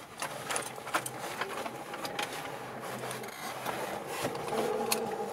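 Scattered faint clicks and rubbing over a low steady hum in a light aircraft's cockpit.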